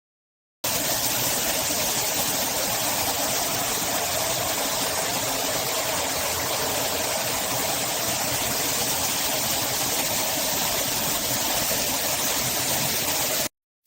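Water running steadily from a shower, an even rush that starts abruptly about half a second in and cuts off just before the end.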